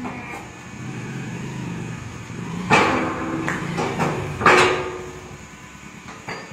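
Truck tyre changer machine running with a low steady hum, then two loud clanks about two seconds apart near the middle, each ringing briefly, as the tyre and rim are worked on the machine.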